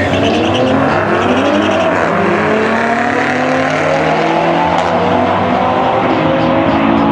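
A red Toyota GR Supra and a BMW SUV launching off the drag-strip start line and accelerating hard side by side. The engine notes climb through the gears, dropping back at each upshift.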